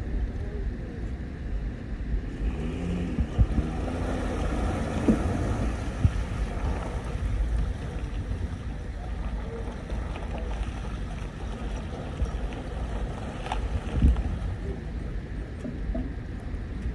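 Evinrude outboard motor running at low throttle, its propeller churning the water at the stern of a boat still sitting on its trailer in the shallows. Wind buffets the microphone throughout.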